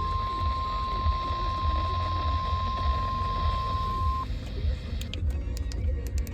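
NOAA Weather Radio's single steady alert tone over a low receiver hum, cutting off abruptly about four seconds in. About a second later the rapid chirping of the SAME end-of-message data bursts begins.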